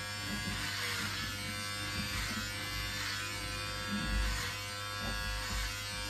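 Electric hair clippers running steadily while trimming hair, a constant buzz.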